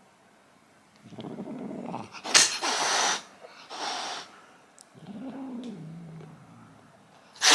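Cat hissing: two sharp hisses, about two and four seconds in, then a low, falling growl lasting over a second.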